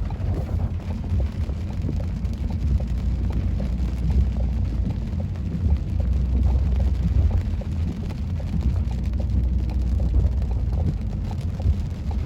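Steady low road and engine rumble inside a moving car, with scattered light ticks over it.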